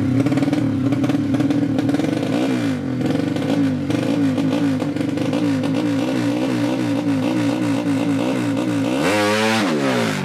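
Four-stroke underbone drag bike with a horizontal 'sleep' engine of up to 200cc, held at high revs on the throttle and blipped up and down in quick even pulses. Near the end it revs up steeply and then falls away.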